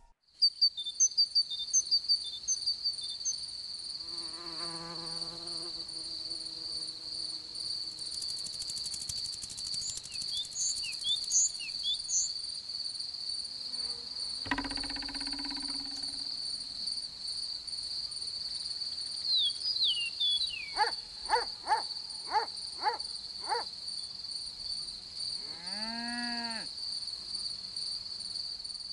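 Cricket chirring: a continuous high-pitched trill that never stops. A few short chirps and some lower, separate animal calls sound over it at intervals.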